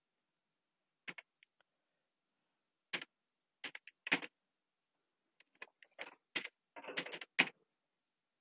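Computer keyboard being typed on: single keystrokes and small clusters with pauses between them, coming faster in a short run of keys near the end.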